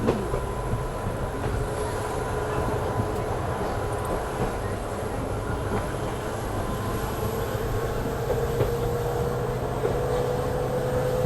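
Passenger train hauled by a WDP4D EMD diesel locomotive running along the track: a steady rumble with a faint whine that rises slowly in pitch over the second half.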